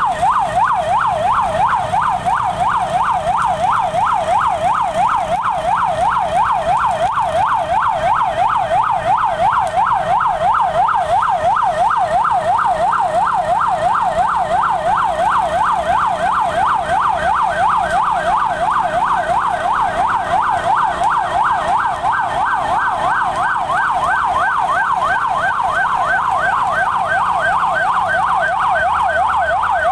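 Fire engine siren sounding a fast yelp. Its pitch sweeps up and down about three times a second without a break.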